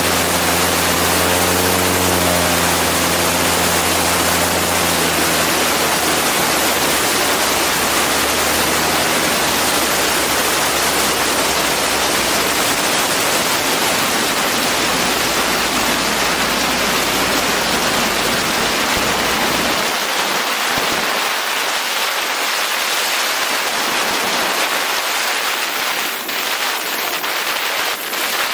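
Heavy wind rushing over an outside-mounted camera on a ski-equipped Husky A-1C light aircraft in flight, with the engine's low hum underneath that fades away over the first half as power comes off for the landing approach. Near the end a few sharp bumps as the skis touch down in the snow.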